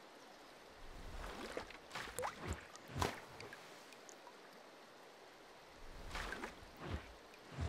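Watery drip and bubble-plop sound effects: a scattered series of short plops, some with a quick upward pitch glide, the loudest about three seconds in, with a quiet gap of about two seconds before a few more plops near the end.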